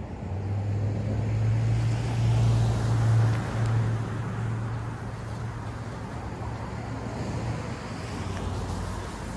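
A motor vehicle going by on the street: a steady low engine hum and road noise that build over the first three seconds, then fade and linger at a lower level.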